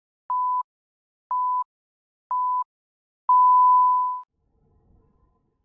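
Countdown-leader beeps at one steady high pitch: three short beeps a second apart, then one longer, louder beep of about a second as the count reaches zero.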